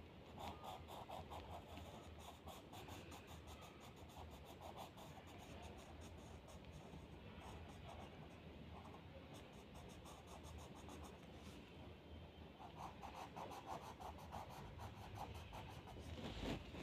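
Coloured pencil scratching faintly on drawing paper in quick back-and-forth shading strokes. The strokes come in several runs with short pauses between them.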